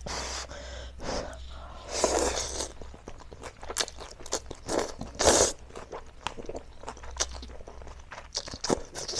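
Instant noodles being slurped up from chopsticks, several slurps with the loudest about five seconds in, with wet chewing and lip-smacking clicks in between.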